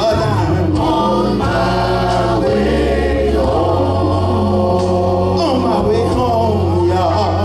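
Church choir singing a slow gospel song with long-held notes, over sustained low instrumental bass notes.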